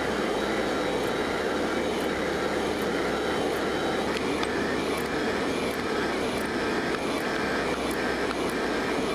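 A steady, even roar of workshop equipment running, with faint light ticks about twice a second.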